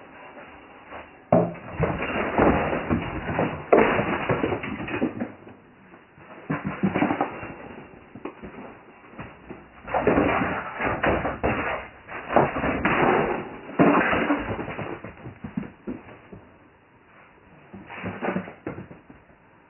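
Irregular bouts of thumps, bangs and rustling from a skittish house cat scrambling to get away indoors. The bouts are loudest a couple of seconds in and again around the middle, with a shorter burst near the end.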